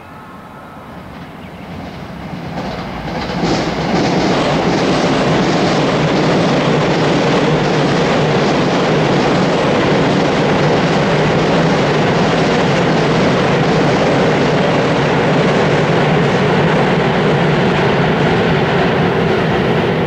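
A train crossing a bridge overhead: the rumble and clatter of its wheels build over the first few seconds, then stay loud and steady.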